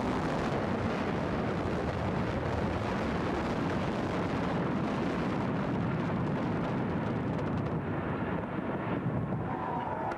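Implosion of a multi-building hospital complex: a rapid string of demolition charges going off one after another, running together into a continuous rumble of collapsing buildings that echoes like thunder. Whistling from the watching crowd starts near the end.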